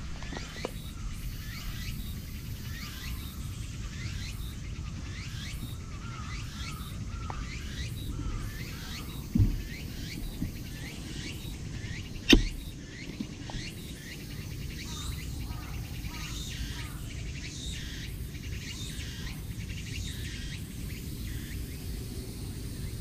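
Birds chirping over and over in short, falling notes, over a steady low rumble. Two knocks break in, the second louder, about nine and twelve seconds in.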